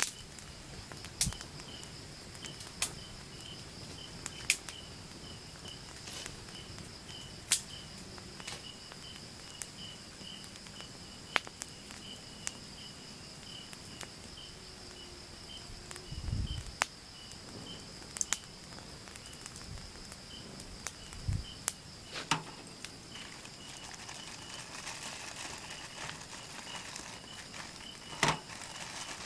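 Night insect chorus: a steady high trill, with a cricket chirping in a regular pulse of about two chirps a second. Sharp crackles and pops from a wood campfire come now and then.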